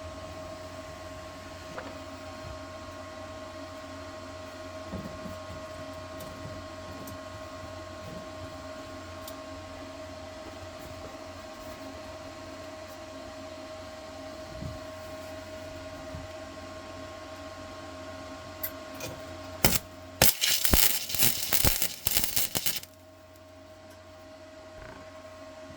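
A steady electrical hum from the shop. About twenty seconds in come a few sputtering clicks, then nearly three seconds of loud, irregular crackling: a welder laying short tack welds.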